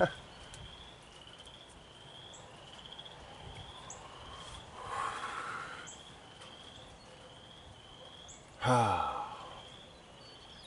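Quiet outdoor ambience with a small animal's short, rising high chirp repeated steadily, about one and a half times a second. A man's long falling sigh comes near the end.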